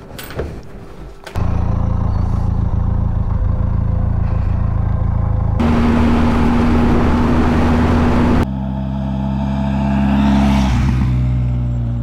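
Benelli TRK 502X parallel-twin motorcycle engine running at a steady cruising speed, with heavy wind rush on the microphone for a few seconds in the middle. Near the end the motorcycle approaches and passes close by, growing louder and then dropping in pitch and level.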